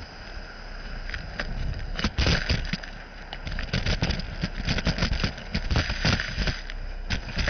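Gutter vacuum system running with a steady whine while debris and grit are sucked up the pipe, rattling and clicking irregularly against it, the clicks coming thicker from about two seconds in.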